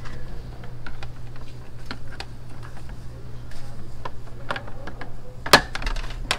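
Scattered small clicks and taps of a screwdriver working on the plastic fairing panels and fasteners of a Honda CBR150R, with one sharp, louder snap about five and a half seconds in, over a low steady hum.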